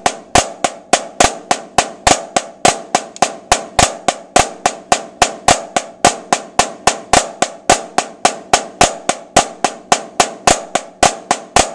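Snare drum struck with wooden sticks in a steady, even stream of strokes at about four a second, each with a short ring. A rudimental snare solo passage of sixteenth notes played out at a deliberately slow tempo.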